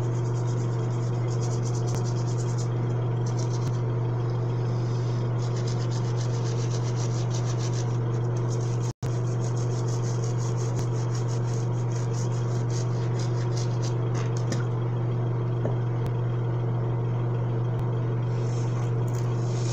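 Manual toothbrush scrubbing teeth in quick rhythmic strokes that come and go in spells, over a loud steady low hum.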